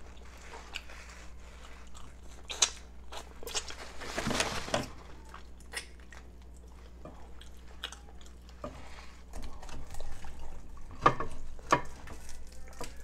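Close-up eating of rotisserie chicken: chewing, lip-smacking and finger-sucking with scattered wet clicks, and a longer, louder smack about four seconds in. Near the end come two sharper clicks as the chicken is pulled apart by hand.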